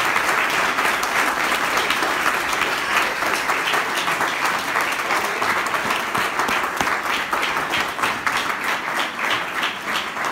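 Audience applauding, many hands clapping at once.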